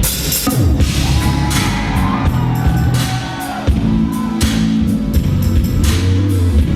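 Jazz-fusion band playing live at full volume, with drum kit hits over bass and sustained chords.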